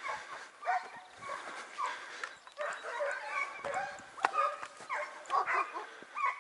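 Hare-hunting hounds giving tongue as they chase a hare: a steady run of short barks, one after another, with several dogs overlapping.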